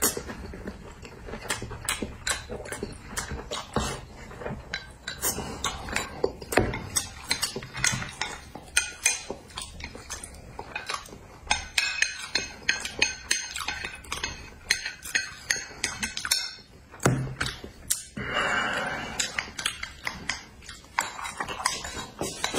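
Eating utensils clicking and clinking against ceramic bowls and plates as food is eaten, many quick irregular taps.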